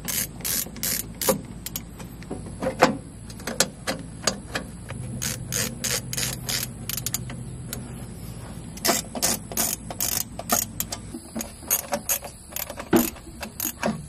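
Ratcheting screwdriver clicking in quick runs of sharp ticks as screws are driven into the sheet-metal shroud of a tractor.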